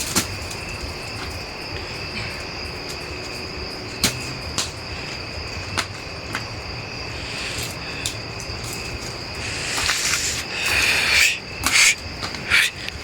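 Crickets trilling steadily at night, a continuous high-pitched drone, with a few sharp clicks and some louder noisy bursts near the end.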